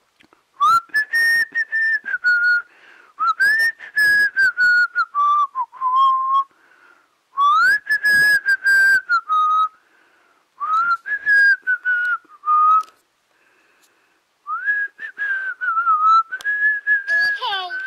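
Furby toy whistling a tune through its speaker: several phrases of gliding whistled notes with short pauses between them, and sharp clicks among the notes.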